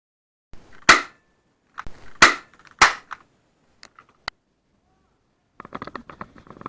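Airsoft pistol shots: three loud sharp cracks within about two seconds, with fainter clicks around them. Near the end a dense crackling rustle starts.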